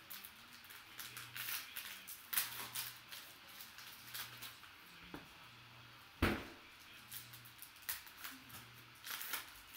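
Plastic cellophane wrapper of a basketball trading-card cello pack crinkling as it is torn open and the cards are handled, in a run of short rustles, with one sharp snap about six seconds in.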